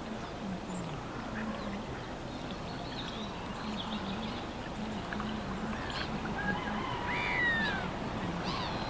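Ducks quacking on open water, with small birds giving short high calls and one falling whistle near the end, over a steady hum of distant road traffic.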